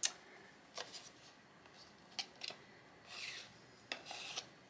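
Light clicks and taps of plastic paint cups and tools being handled and set down on a paper-covered table, with two short rustles about three and four seconds in.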